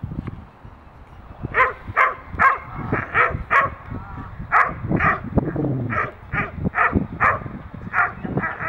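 Large dog barking hard and fast, about two to three barks a second from about a second and a half in, as it lunges on the leash at a decoy in protection training.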